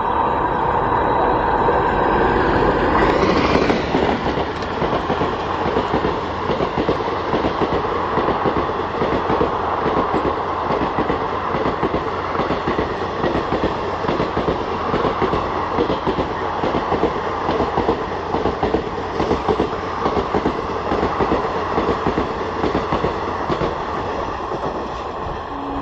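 Electric-hauled express train passing close at speed. The locomotive goes by about three to four seconds in, then a long rake of ICF passenger coaches rattles past with a rapid clickety-clack of wheels over the rail joints.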